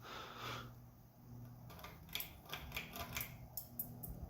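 1993 SMC U42 ceiling fan motor humming steadily on low speed. From about two seconds in, a run of light clicks and small rattles, typical of the pull-chain switch being worked to change speed.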